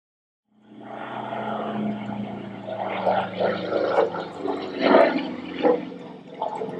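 Propeller airplane's piston engine running, coming in suddenly about half a second in after silence, a steady low drone with uneven surges.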